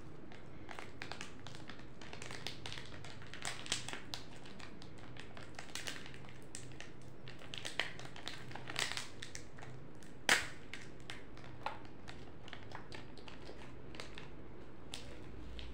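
Small foil chip pouch crinkling and crackling as it is handled and torn open, in scattered short rustles with one sharper crackle about ten seconds in.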